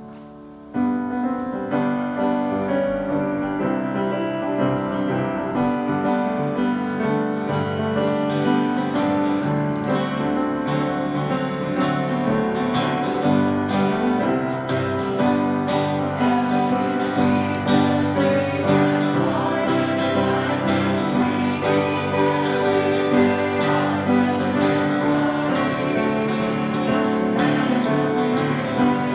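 A hymn played on a strummed acoustic guitar, starting suddenly about a second in, with a woman and a man singing.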